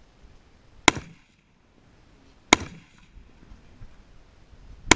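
Three rifle shots from a scoped AR-style rifle, fired slowly, first about a second and a half apart and then about two and a half seconds apart. Each shot ends in a short echo.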